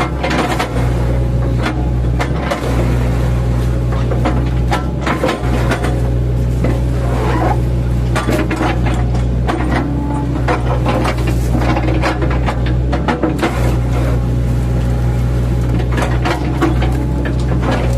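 Mini excavator's diesel engine running steadily under load while its bucket chops into felled oil palm trunks, with repeated crunching and cracking of the fibrous wood throughout.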